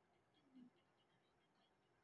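Near silence: room tone with very faint, quick ticking and one short, soft low sound about half a second in.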